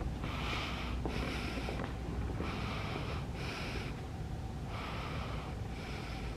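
A person breathing heavily close to the microphone, in and out in a steady rhythm, one breath about every two and a half seconds.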